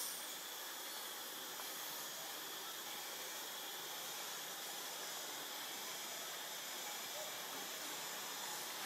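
A steady, even hiss of background noise, with no distinct event standing out.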